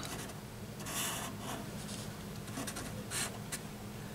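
Felt-tip marker drawing on paper: a few short, faint strokes, the longest about a second in.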